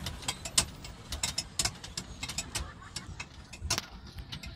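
Swan pedal boat's pedal and paddle-wheel drive clicking and knocking irregularly as it is pedalled, over a low steady rumble.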